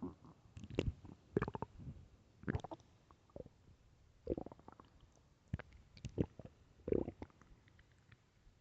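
Human stomach growling from hunger: a string of short gurgles and pops at irregular intervals, some with a brief squeaky pitch, the strongest about seven seconds in.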